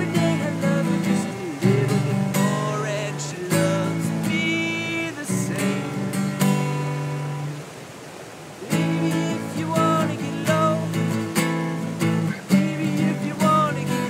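Acoustic guitar strummed in a steady chord pattern, with a man singing phrases over it. The playing eases off briefly about eight seconds in, then resumes, with the stream rushing underneath.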